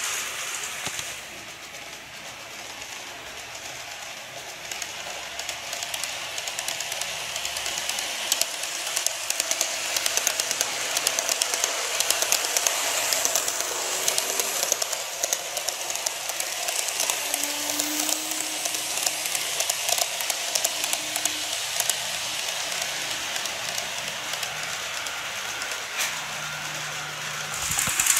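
KATO N-gauge 381 series model train running on the layout track: a steady clicking rattle of the wheels on the rails, growing louder over several seconds as it approaches and then holding steady.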